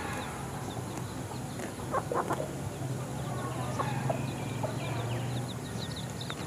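Free-ranging chickens clucking, with short scattered calls and a run of high chirps a few seconds in.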